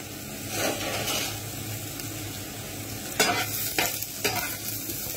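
Cubed potatoes frying in oil in a non-stick pan, a steady sizzle as they start to brown. From about three seconds in come a few short louder hisses as pieces of cooked chicken are dropped in among them.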